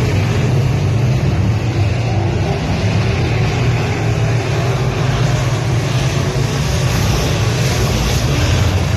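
Semi late model dirt-track race cars' V8 engines running, a steady, loud drone heard from the grandstand.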